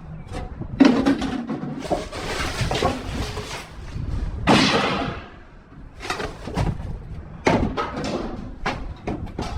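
Scrap and debris being rummaged through by hand in a dumpster: a busy run of knocks, clatter and scraping, with longer scrapes about two seconds in and again about four and a half seconds in.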